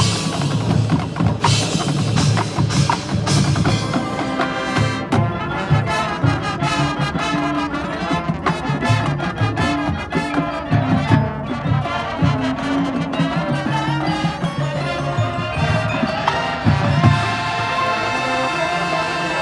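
Full marching band playing: held notes from the winds and brass over a busy drumline, with pitched mallet percussion.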